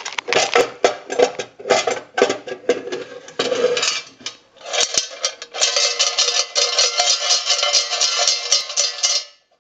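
Coins clinking and rattling in a payphone's metal cash box as it is opened and handled: separate clinks and knocks at first, then a dense continuous jingle from about halfway that stops abruptly near the end.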